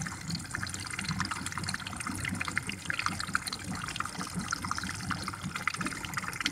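Water circulating in a goldfish tank, trickling and bubbling steadily over a low, even hum.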